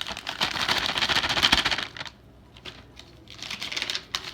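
Hard-frozen mixed vegetables poured from a bag into a pot, the frozen pieces clattering in a dense patter of small clicks. There are two spells, with a short lull about two seconds in.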